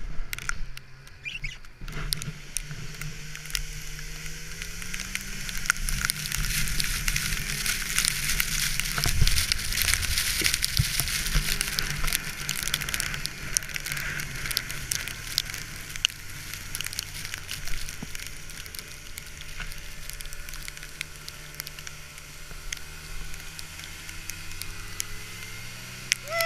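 A sled being towed over snow: a steady hissing scrape full of small crackles and ticks, loudest about halfway through. Under it runs the towing snowmobile's engine, which rises in pitch a few seconds in as it pulls away.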